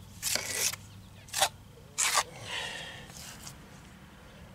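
A hand trowel scrapes and spreads wet cement base coat onto a masonry wall in three short strokes, the last about two seconds in.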